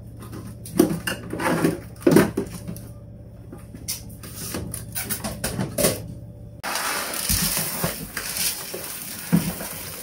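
Kitchen things clattering and knocking as they are put away in cupboards and drawers, over a low steady hum. About six and a half seconds in the sound cuts abruptly to a steady hiss with a few knocks.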